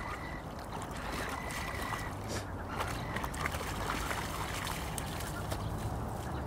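An Airedale terrier and an Irish terrier splashing through shallow water as they wade out onto the bank, the splashing busiest around the middle, over a steady low rumble.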